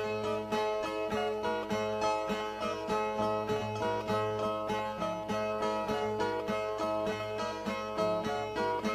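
Two Brazilian ten-string violas playing an instrumental interlude between sung stanzas of repente cantoria. The plucked melodic figure repeats in a steady rhythm over ringing open strings.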